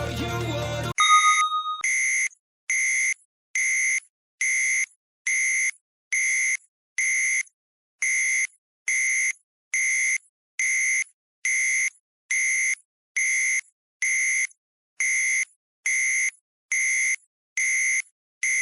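Electronic countdown-timer alarm beeping: after a short tone about a second in, the same plain beep repeats about twenty times, a little faster than once a second, signalling that the timer has run out.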